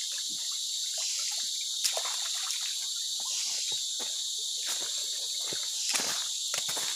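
Steady, high-pitched insect chorus from the rainforest, with a shallow stream trickling over stones. Small splashes come early on as hands dip into the water, and footsteps crunch on the pebbly bank near the end.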